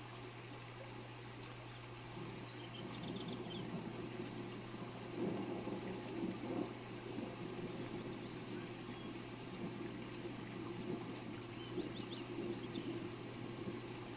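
Steady rain falling, its patter thickening about two seconds in, with short bursts of bird chirps about three seconds in and again near the end.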